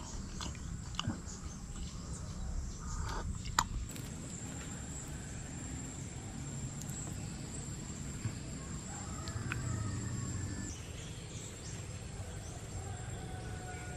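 Outdoor jungle ambience: a steady high-pitched insect whine over a low background hiss, with faint bird chirps later on and a few sharp clicks in the first few seconds.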